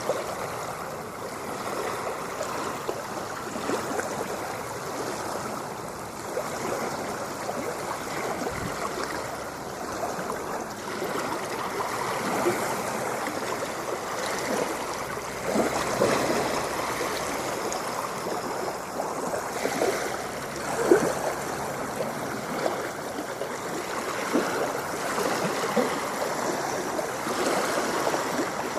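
Ocean water washing and splashing: a steady wash of water noise dotted with small gurgles and splashes, with one louder splash about three-quarters of the way through.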